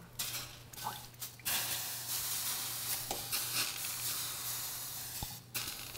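Water flicked onto a hot gas stovetop, sizzling and spitting, with several recordings layered together. A lighter crackle with a few spits comes first; from about a second and a half in it thickens into a dense, steady sizzle that cuts off suddenly just before the end.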